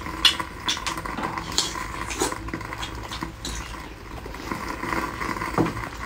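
Close-miked chewing and lip-smacking: a run of short, wet mouth clicks, busiest in the first couple of seconds, with a bite into the food near the end.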